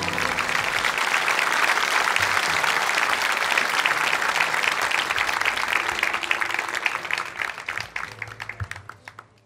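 Large seated audience applauding, the clapping thinning to a few scattered claps and stopping near the end.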